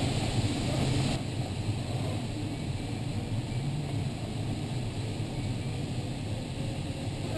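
Steady rush of airflow around the cockpit of an LS8-18 sailplane in unpowered flight, heaviest in the low end. The higher hiss eases a little about a second in.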